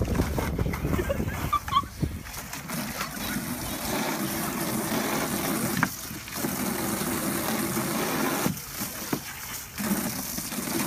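Water from a garden hose spraying and splashing into a plastic kiddie pool as a dog bites at the stream and paws at the water.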